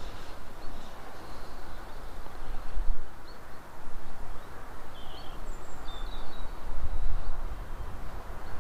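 Strong wind buffeting the microphone in gusts, with a few short bird chirps from about three seconds in.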